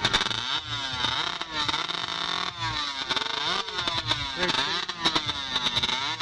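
Modified racing chainsaws (hot saws) with motorcycle-type two-stroke engines and expansion-chamber exhausts, being revved up and down over and over as they warm up.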